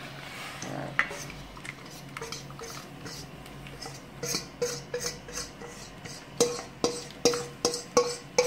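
Metal utensils stirring in and clinking against a steel cooking pot and bowl as cornmeal mixture is poured into water. There are a few scattered clinks at first. From about halfway there is a steady run of short ringing clinks, two or three a second.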